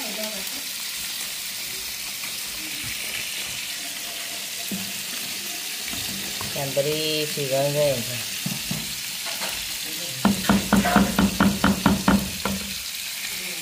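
Red curry gravy bubbling and sizzling in an aluminium pot with a steady hiss, stirred with a wooden spatula. About ten seconds in, a quick run of knocks, about five a second, as the spatula works against the pot for two seconds or so.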